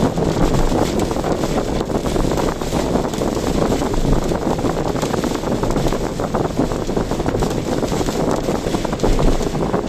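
Steady rushing of strong typhoon wind mixed with the noise of a car driving on the road, continuous and loud with no distinct events.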